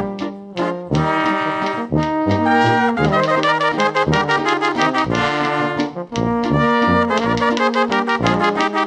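Small Bavarian brass folk band playing a Ländler: trumpet and trombone carry the melody in held notes over a tuba bass playing short, regular low notes.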